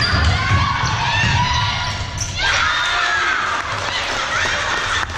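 Basketball bouncing and players' feet on a wooden sports-hall floor during a game, echoing in the large hall, with short high squeaky glides mixed in.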